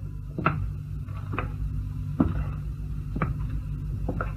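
Slow footsteps on a wooden floor, single knocks about a second apart, over a steady low hum.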